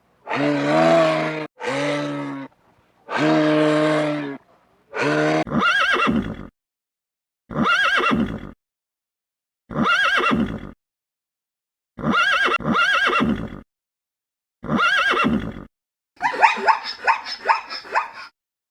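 A sequence of separate animal calls with silent gaps between them. Four low, drawn-out calls come in the first five seconds, then five shorter calls about two seconds apart, each rising and falling in pitch, and near the end a quick run of rapid, choppy calls.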